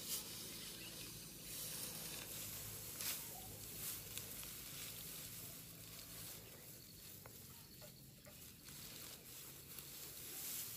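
Faint rustling of dry cut grass being handled and gathered by hand, with a few soft brushing strokes.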